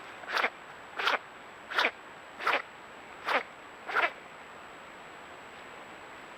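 River otter sneezing over and over: six short, sharp sneezes about two-thirds of a second apart, over a steady faint hiss.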